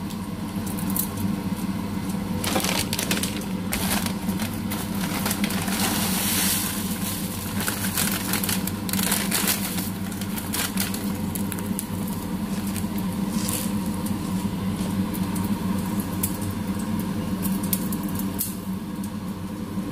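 Dry bihon rice-vermicelli blocks crackling and crunching in irregular bursts as they are broken up by hand over a wok. A steady low hum runs underneath.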